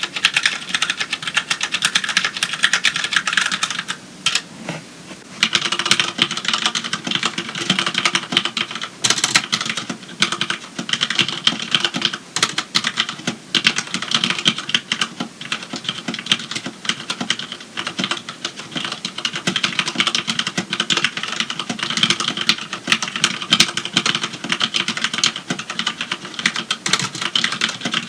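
Rapid typing on mechanical keyboards. For the first few seconds it is a Ducky Mini with Cherry MX Brown tactile, non-clicky switches. After a brief pause, about five seconds in, typing resumes on a Magicforce 68 with Cherry MX Black linear switches.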